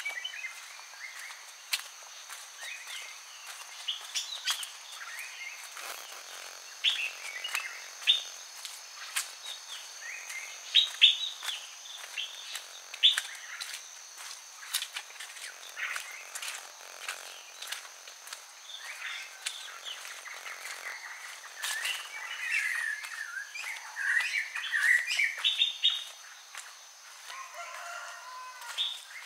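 Birds chirping and calling on all sides, with a steady high drone of crickets behind them and occasional sharp clicks of footsteps. The birdsong grows busier about two thirds of the way through.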